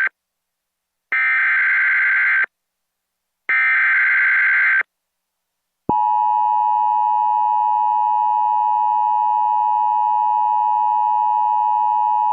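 Emergency Alert System SAME header data bursts: two harsh digital warbles, each about a second and a half long, a second apart. About six seconds in, the steady two-tone EAS attention signal starts and holds without change. Together they mark the start of an emergency alert, here a severe thunderstorm warning.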